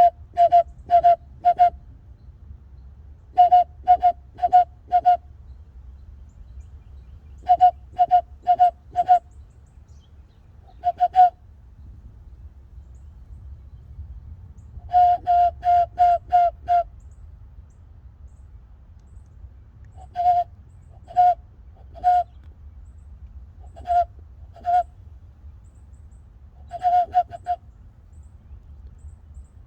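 Hand-whistled bird calls blown through cupped hands: short hoot-like notes at one steady pitch, in quick runs of two to five with pauses of a second or more between runs.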